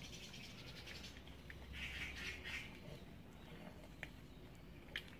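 Cats crunching dry kibble from dishes: spells of rapid crackly chewing, with a couple of sharp ticks near the end over a steady low hum.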